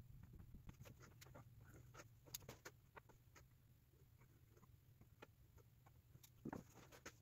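Faint, scattered light clicks and taps of hands handling the parts of a Mazda RX-7 FC intake manifold, over a low steady hum.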